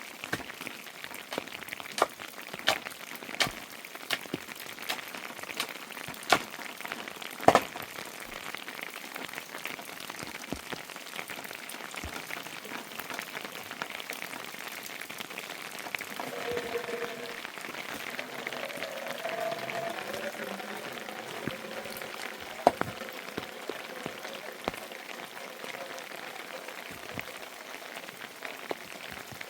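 Steady rain, with a string of loud, sharp drips striking a surface in the first eight seconds or so.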